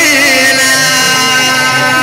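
Live band music for a devotional song, with electronic keyboard and electric guitars; a wavering note settles into a long steady held note about half a second in.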